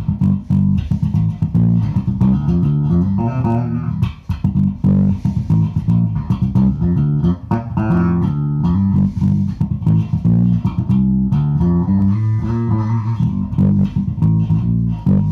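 Harley Benton MM 85-A five-string electric bass playing a busy run of plucked notes, with the pickup switch set to both coils of the bridge pickup in parallel for a Stingray-like tone.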